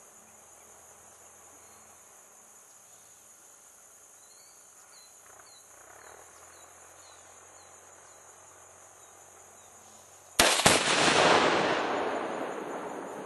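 Rifle shot setting off a one-pound charge of Tannerite binary explosive about ten seconds in: a sharp crack, then the blast, which rolls away over about three seconds. Crickets chirring steadily before it.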